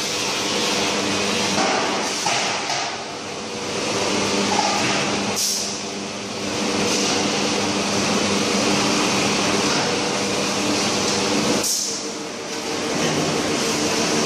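Sheet-metal press machinery in a steel-drum works running: a steady mechanical hum with several held tones under a broad noise, broken by a short sharp clack about five seconds in and again near twelve seconds.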